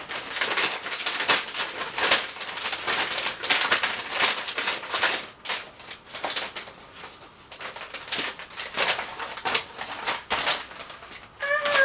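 Padded paper mailing envelope being torn and pulled open by hand: irregular crackling rips and rustling, densest in the first half and sparser after.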